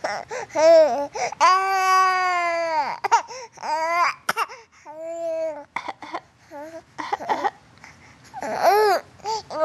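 Young infant cooing and babbling: a string of high-pitched drawn-out vowel sounds with short gaps between, the longest held for about a second and a half.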